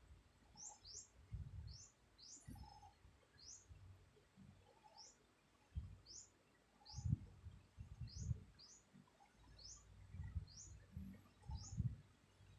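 A bird chirping over and over: short, high chirps that fall in pitch, roughly one a second. Irregular low rumbles come in between, the loudest about halfway through and near the end.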